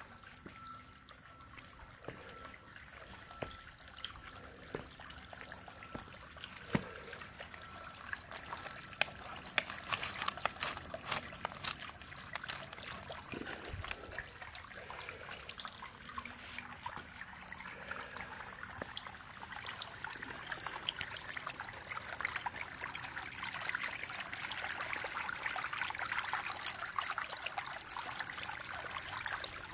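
Water trickling from a disappearing fountain, welling up through a honeycombed limestone boulder and running down over the rock, with many small drips and splashes. The flow sounds fuller and a little louder in the last third.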